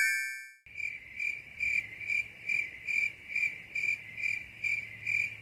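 A high, insect-like chirping trill that pulses about twice a second. It cuts in abruptly about half a second in and cuts off abruptly near the end, like an edited-in sound effect. A short warbling tone fades out at the start.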